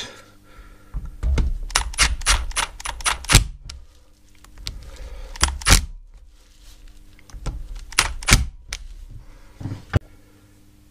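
Cordless drill-driver tightening the end-cap screws of a mobility scooter's DC motor, its clutch ratcheting in quick runs of sharp clicks as each screw reaches the set torque. There are three such runs, the first and longest with the drill's motor running under it.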